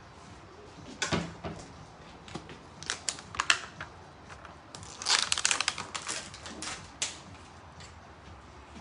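Irregular sharp clicks and short bursts of clatter, loudest about one second in, around three seconds in, and in a dense cluster five to six and a half seconds in.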